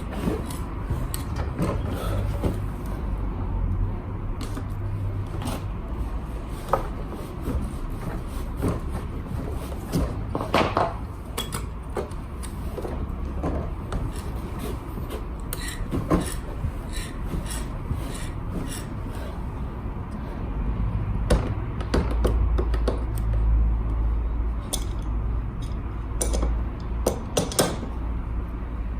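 Hand tools and metal parts being handled during repair of a Honda Today scooter's seized rear wheel. Irregular clinks and knocks come now and then, over a low steady rumble, with a louder knock at about 10 seconds and another at about 21 seconds.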